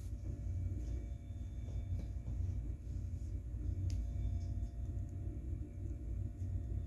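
Steady low background rumble and hum, with a few faint small clicks.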